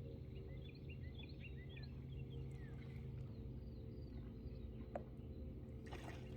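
Birds chirping in a quick run of short calls for the first few seconds, over a steady low hum.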